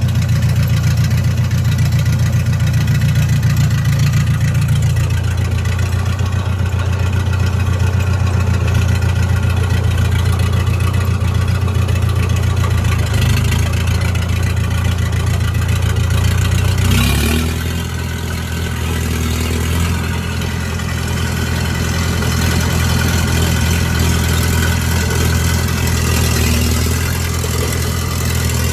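S651 crawler bulldozer's diesel engine running steadily. It gives a sharp clank about two-thirds of the way through, after which the engine runs a little quieter.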